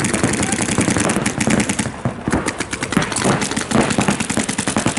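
Paintball markers firing rapid, overlapping strings of shots, many cracks a second, with a brief lull about two seconds in.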